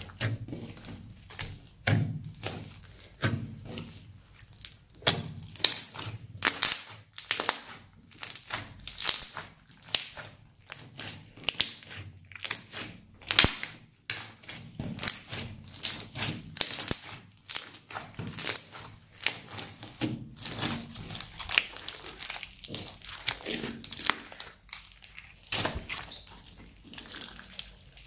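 Hands squishing and stretching a thick purple slime with small beads mixed in, making irregular sticky pops, squelches and crackles, several a second.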